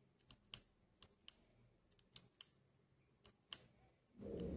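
Plastic push button on an LED headlamp clicking in pairs, press and release, four times about a second apart as the lamp is cycled through its spot-light modes. A short louder rustle of handling near the end.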